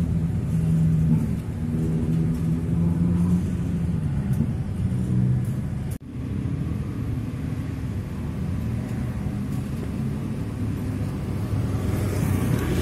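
A motor vehicle's engine running steadily, a low hum with a droning tone. The sound drops out for an instant about six seconds in.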